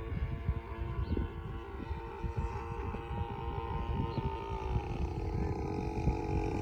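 Giant-scale RC airplane's DLE gasoline engine running steadily in flight, its pitch dipping slightly about two-thirds of the way through, with wind buffeting the microphone.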